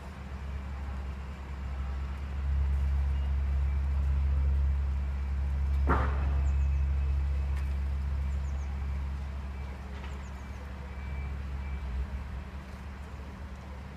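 Low rumble of road vehicle engines, swelling a few seconds in and slowly easing off, with a single sharp knock about six seconds in.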